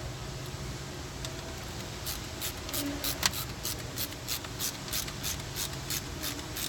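A series of short scratchy strokes, about three a second, starting about two seconds in, from hand work fitting the new back-up camera into the plastic trim panel.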